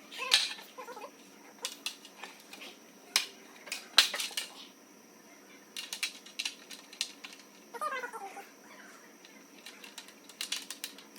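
Scattered clicks and knocks of plastic splitter pieces and screws being handled and fitted together, with two short pitched calls that slide downward, one near the start and one about eight seconds in.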